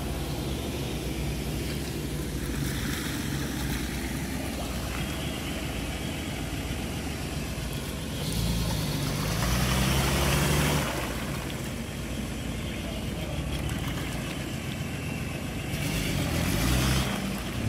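Lifted Nissan Patrol 4x4's engine running at low revs as it crawls through a muddy, water-filled track, rising in revs twice, about eight seconds in and again near the end. With the revs comes a rush of noise from the tyres churning through mud and water.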